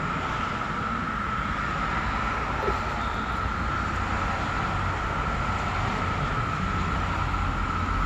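Chorus of periodical cicadas: a steady, unbroken high-pitched drone that does not let up, over a low rumble.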